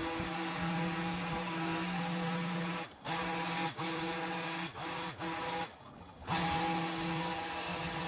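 Battery-powered long-shaft garden power tool's electric motor running with a steady whine. After about three seconds it is let off and picked up again several times in quick succession, with a longer stop of about half a second near six seconds.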